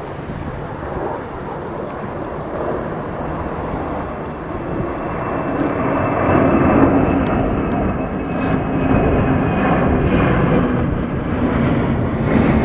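Engine roar of a heavy wide-body jet climbing out after takeoff, growing louder about halfway through, with a faint high whine over the roar.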